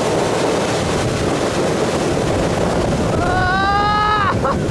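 Steady rush of wind and water with the Centurion Ri230 wake boat running at towing speed. About three seconds in, a voice gives one long whoop lasting about a second.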